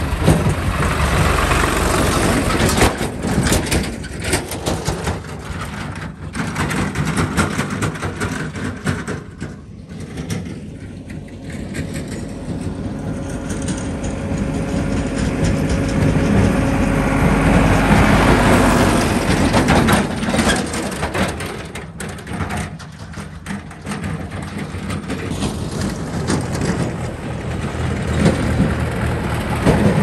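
Diesel farm tractors driving past one after another on a gravel track: engines running, tyres crunching on the gravel, with knocks and rattles. The sound swells as each tractor comes close, near the start, around the middle and again at the end.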